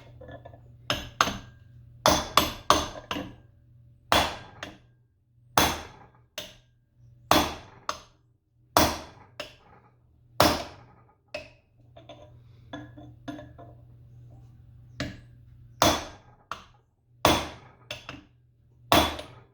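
Hammer striking metal again and again, knocking a stuck part out of a cast-aluminium variable-speed gearbox. The sharp blows ring briefly and come irregularly, sometimes in quick clusters, about one every second or so.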